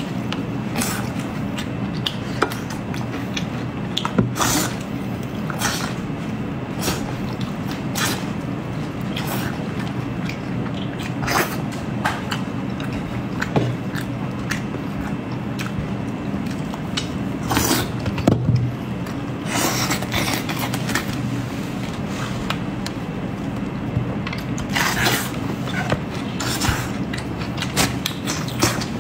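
Close-up eating sounds: wet chewing, lip smacks and slurps as a person bites and chews soft braised eel strips and noodles, in scattered irregular clicks over a steady low hum.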